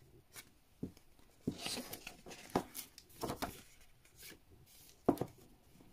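Thick paper pages inside a vinyl LP package being turned and handled: a few short, faint rustles and light taps.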